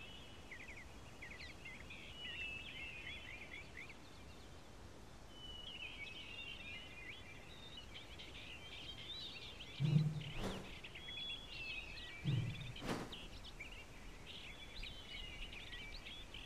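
Faint background of small birds chirping in quick, short notes, with two dull thuds about two-thirds of the way through.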